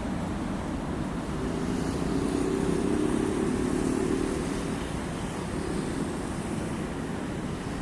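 A motor's hum swells about a second and a half in and fades out around four and a half seconds, over a steady rushing noise.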